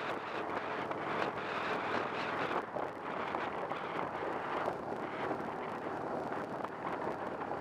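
Road and wind noise of a moving car, an uneven rush with wind buffeting the microphone.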